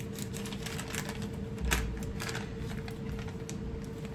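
Plastic bag crinkling and crackling in irregular bursts as it is handled and opened, with a low thump about a second and a half in. A steady faint hum runs underneath.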